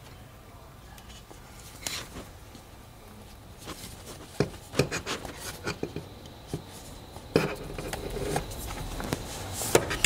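A parking brake handle and its stitched boot being handled on a metal workbench: scattered light clicks and knocks, with a cluster of them in the middle, and soft rubbing of the boot as it is worked onto the grip.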